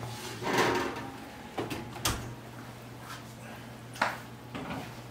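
Oven door opening and a pan being pulled out of the oven and set down on the gas stove's grates: a short rush of sound about half a second in, then a few separate sharp metal knocks, over a steady low hum.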